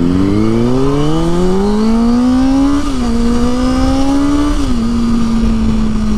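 Sport motorcycle engine accelerating after pulling out into traffic. It climbs in pitch, drops back with an upshift about three seconds in and another near five seconds, then holds a steady note at cruising speed.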